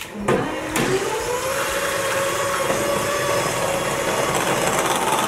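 Electric hand mixer switched on, its motor whining up to speed just after the start and then running steadily as its beaters work through butter, sugar and eggs for cookie dough.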